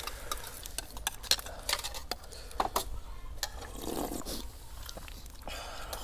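Metal spoons clicking and scraping against ceramic plates and bowls as people eat, many small irregular clinks, with a faint voice briefly about four seconds in.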